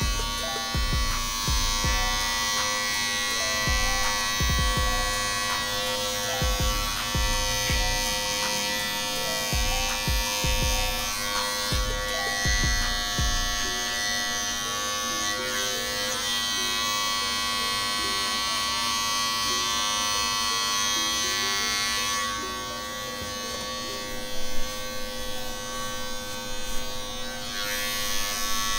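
Corded Andis Master hair clippers buzzing steadily as they cut short hair. Low knocks and rubs come through in the first half, and the buzz drops a little near the end, with a few sharp clicks.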